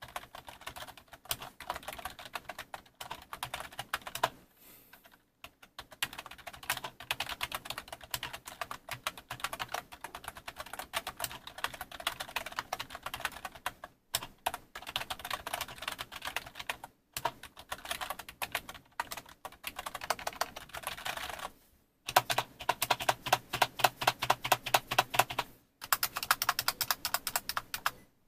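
Typing on a WONDERLAND Archon membrane gaming keyboard: rapid keystroke clicks in runs of several seconds, broken by short pauses. About three quarters through, one run is louder and heavier.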